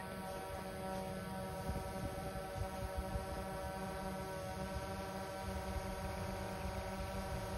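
DJI Mavic 2 Zoom quadcopter hovering: its propellers make a steady buzzing whine of several pitches at once, holding one speed.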